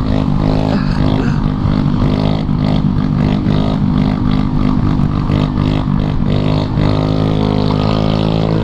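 Dirt bike engine running steadily at cruising speed.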